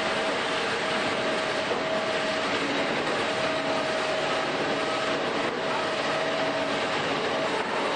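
HEMSAW DC8080 large bandsaw cutting through a pickup truck's body: a steady, loud metal-cutting noise with a ringing tone that drops in and out.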